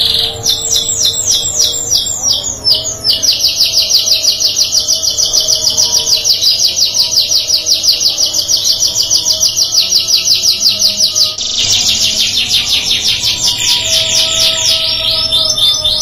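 Domestic canary singing a long run of fast trills, each made of rapidly repeated notes. It switches to a new trill every few seconds.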